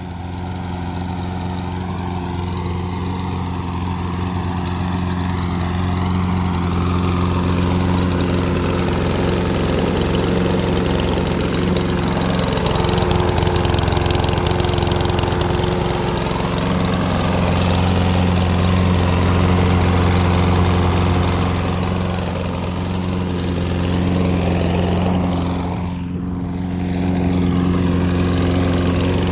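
Briggs & Stratton OHV single-cylinder lawnmower engine running steadily at a fixed speed, its sound dipping briefly near the end.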